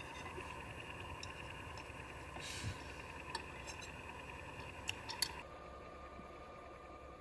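A few scattered small clicks and taps, with a brief soft rustle in between, over a faint steady hum; the background changes abruptly about two thirds of the way in.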